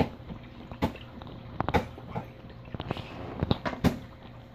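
About six irregular sharp knocks and clicks over a steady low hum from the aquarium's hang-on filter.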